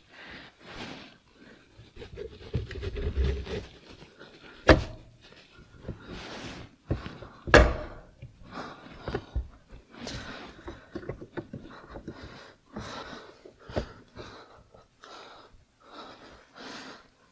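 Vespa smallframe engine case halves being fitted together over the crankshaft: scraping and handling clatter, with two sharp knocks about 5 and 7.5 seconds in.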